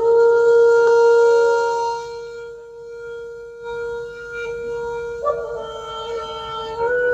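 Conch shell (shankha) blown in long held notes at one steady pitch, the traditional call that opens Durga worship. The note starts loud and suddenly, eases after about two seconds, and is blown afresh a little higher a little over five seconds in and again near the end.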